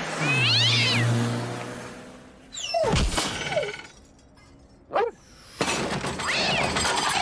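A crash with breaking sounds: a noisy clatter, sharp strokes about three and five seconds in, and high wavering squeals running through it.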